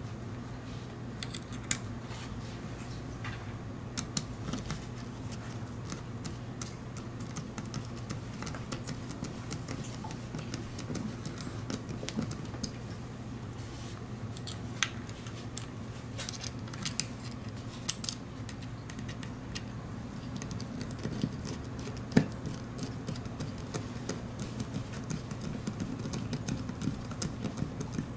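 Scattered light clicks and taps of small screws, nuts and a screwdriver being handled while a sensor board is screwed onto a plastic robot-kit chassis. A steady low hum runs underneath.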